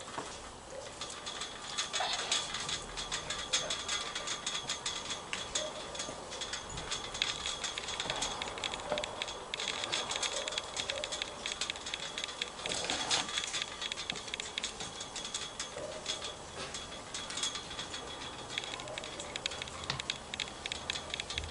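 Chain-link fence rattling and clinking in irregular runs of light metallic clicks as someone grips and climbs it, with busier clusters of rattling every few seconds.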